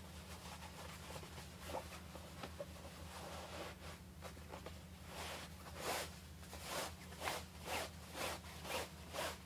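Cloth being rubbed in short, scratchy strokes, about two a second, starting about halfway through, over a steady low electrical hum.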